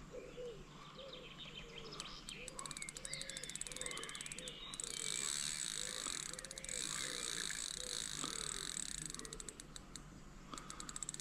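Frogs croaking in a steady series of short calls, about two a second, with birds chirping. A high, rapid chirring joins about two seconds in and stops near the end, the loudest thing heard.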